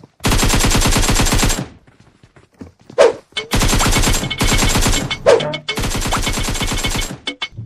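Bursts of rapid automatic machine-gun fire, added as a sound effect: a burst of about a second and a half at the start, then after a short pause two longer bursts, nearly back to back.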